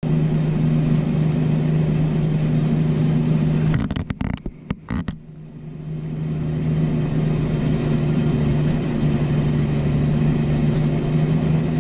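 Fendt 818 Vario tractor's diesel engine running steadily under ploughing load, heard from inside the cab as a low, even drone. About four seconds in, the sound stutters and drops out for a second or so, then builds back up to the same steady drone.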